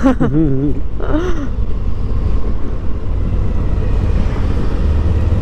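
Riding noise on a Suzuki V-Strom 1050XT: the V-twin engine running at a steady pace, with wind rushing over the microphone.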